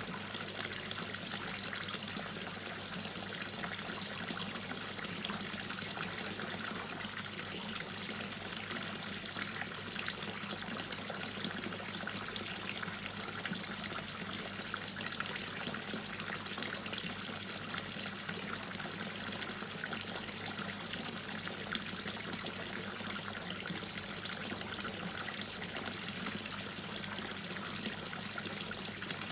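Water dripping and trickling without a break: a dense, even patter of small drops.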